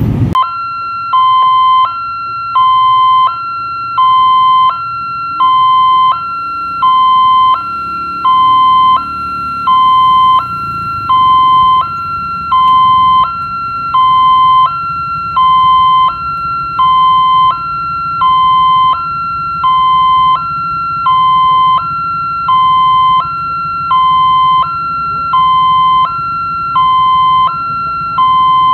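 Indonesian railway level-crossing warning bell: an electronic two-tone alarm alternating evenly between a higher and a lower tone, about one high-low cycle a second, signalling that a train is approaching. A low rumble runs underneath.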